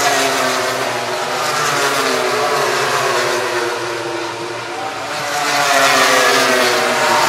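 Racing motorcycle engines at high revs going past, several engine notes at once that drop in pitch through the first half and rise again in the second, then stop abruptly.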